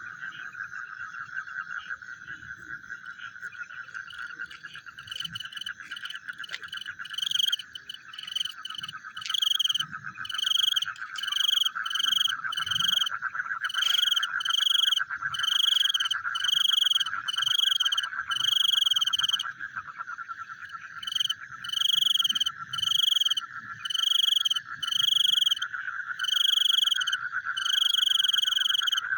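A frog calling over and over at night, short calls about one a second, starting faint about five seconds in and growing loud, with a short pause near the twenty-second mark. A steady, high trilling chorus runs underneath.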